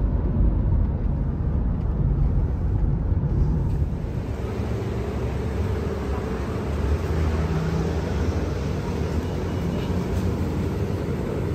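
Road and engine noise inside a moving car: a steady low rumble.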